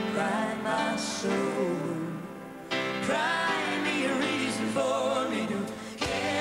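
Live pop ballad played by a band, with a man and a woman singing together in duet; the sung notes waver with vibrato.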